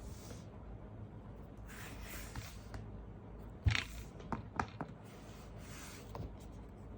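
Unboxing handling noises: soft rustling of packaging, a sharp knock a little before the middle, then a few light clicks.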